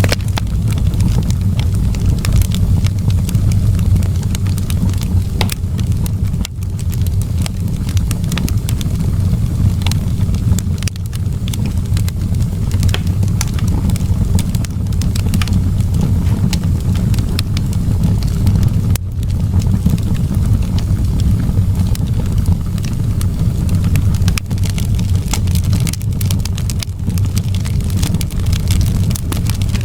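Wood fire crackling in a fireplace: many small, irregular pops and snaps over a steady low rumble.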